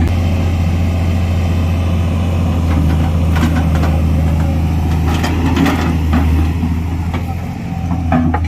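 Excavator's diesel engine idling steadily, with a few short knocks about a third and two thirds of the way in.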